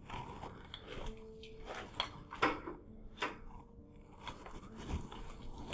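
Footsteps crunching and scraping on a debris-strewn floor, a step or knock roughly once a second, with faint background music notes underneath.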